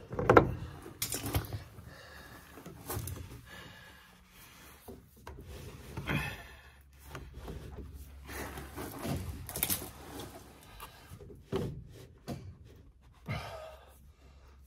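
Handling noise of PEX A plastic supply pipe being worked onto its fittings between wooden floor joists: irregular rubs, scrapes and knocks, several sharp ones scattered through.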